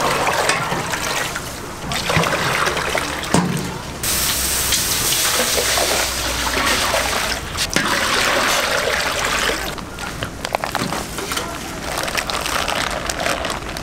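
Water poured from a metal pot into steel trays and a large steaming stockpot, splashing and gushing in several separate pours; the longest and loudest comes near the middle.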